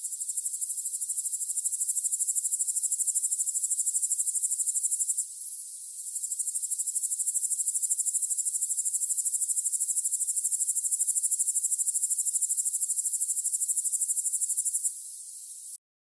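Insect trilling, a high-pitched, rapidly pulsing chirr typical of a cricket or katydid. It pauses briefly about five seconds in, resumes, then cuts off suddenly near the end.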